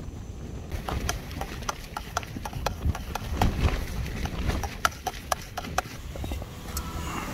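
Wind rumbling on the microphone, with a quick, irregular run of sharp clicks and knocks, about three a second.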